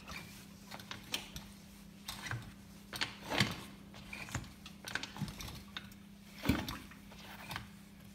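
Irregular light clicks and taps, a few in each second at most, two of them louder about three and a half and six and a half seconds in, over a steady low hum.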